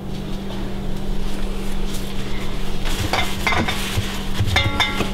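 Hands crinkling and pressing sheets of filo dough down into a round metal baking pan, with light knocks and rubbing against the pan; the handling picks up about three seconds in.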